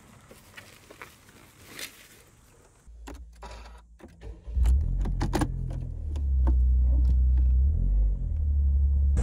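Faint clicks and a jingle of keys, then a small car's engine starts about halfway through and runs with a steady low rumble.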